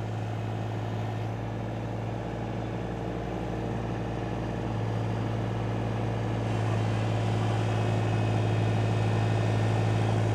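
Steady low machine hum with several steady tones layered in it, slowly growing louder.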